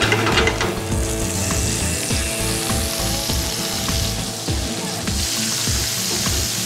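Garlic, dried chilli and shell-on prawns frying in hot olive oil in a pan, with a steady sizzle that grows fuller about a second in.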